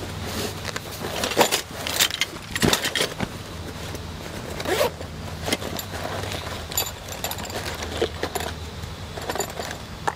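A fabric chef's roll being unfastened and unrolled by hand: rustling cloth with a string of sharp scrapes and clicks, and small metal tools clinking inside, the loudest handling noises in the first five seconds. A steady low hum runs underneath.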